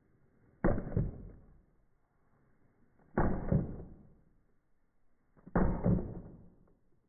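A hammer driving small nails into a wooden toy car's bottom plate. There are three sharp knocks, about two and a half seconds apart, each dying away within a second.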